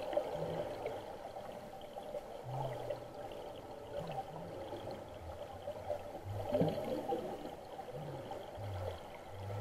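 Scuba divers' exhaled bubbles gurgling and crackling underwater, with soft low bumps now and then.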